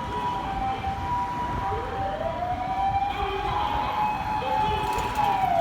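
Japanese ambulance siren: the two-tone hi-lo "pi-po" at the start, then about two seconds in a wailing remote siren rises, holds high, and falls away near the end. The wail is the remote siren used to clear a way through stopped traffic.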